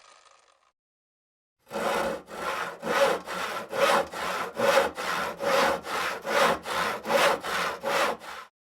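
Hand saw cutting wood with steady back-and-forth strokes, about two to three a second, starting about two seconds in and stopping just before the end.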